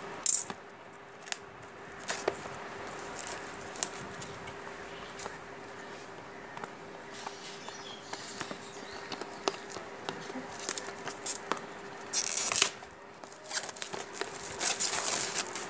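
Plastic shrink-wrap being cut and torn off a phone box, crinkling and rustling in short bursts among light clicks of the cardboard box being handled, with the loudest bursts about 12 and 15 seconds in.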